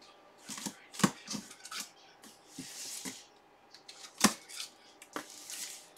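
A blade slitting the packing tape along the seam of a cardboard box, with a rough scrape of the cut a few seconds in and scattered sharp knocks and clicks from handling the box.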